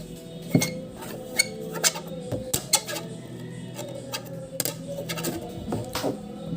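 A dull knife scraping and cutting at the stiff wire strength member of a fiber-optic cable, giving irregular clicks and taps.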